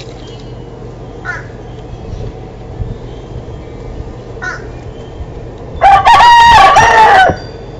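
Rooster crowing once, a loud cock-a-doodle-doo lasting about a second and a half near the end. Two faint short calls come before it.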